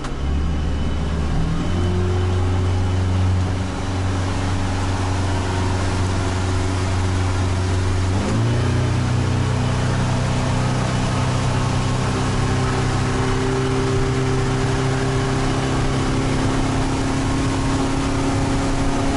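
Motorboat engine, warmed up, opened up to full throttle: its pitch climbs in steps, once about a second and a half in and again with a quick rise around eight seconds in, then holds steady at high revs.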